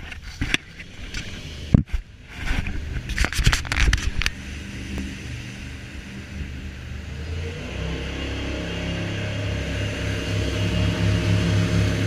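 Jet boat engine running steadily and growing louder through the second half. In the first few seconds there are knocks and rustles of the camera being handled.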